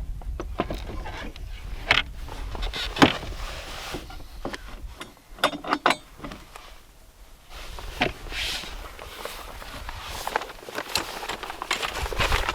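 Irregular knocks and clicks, as of objects being handled, over a low rumble of wind on the microphone that is strongest at the start and again near the end.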